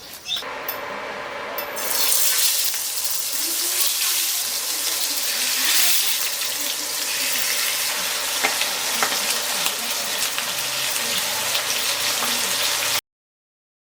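Fish frying in hot oil: a steady sizzle with scattered pops and crackles, starting about half a second in and cutting off suddenly near the end.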